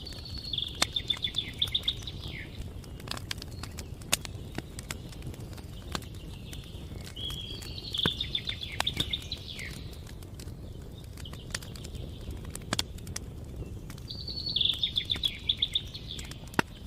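Wood fire crackling, with scattered sharp pops over a low steady rumble. A songbird sings a short, fast trilled phrase three times, about six seconds apart.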